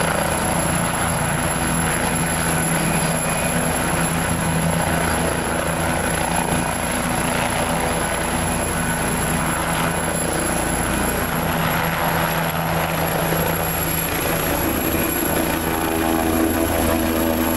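Twin-turbine AgustaWestland AW169 air ambulance helicopter hovering low and lifting off: a steady turbine whine mixed with rotor blade noise. Near the end, as it climbs away, a new set of higher tones comes in.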